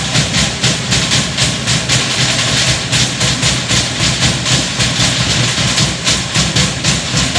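Fast, steady drumming in an unbroken driving rhythm, the Samoan log-drum beat played for a fire-knife dance.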